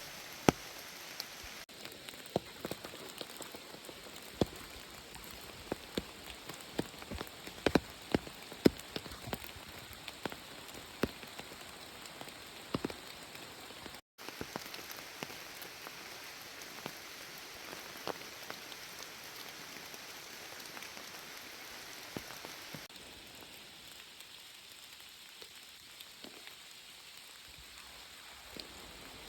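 Steady rain falling, with irregular sharp drops striking close by. There is a brief dropout about halfway, and near the end the rain softens and the drops thin out.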